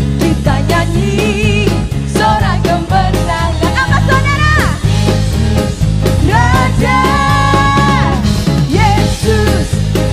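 An upbeat Indonesian-language worship song with a live band and a steady beat, and a woman singing lead into a microphone, holding long notes with vibrato.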